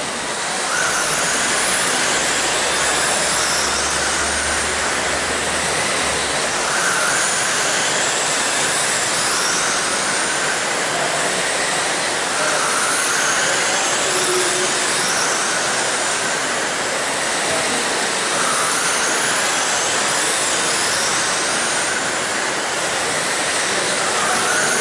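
Electric RC sprint cars racing around a dirt oval: the whine of their 13.5-turn brushless motors rises and falls again and again over a steady hiss.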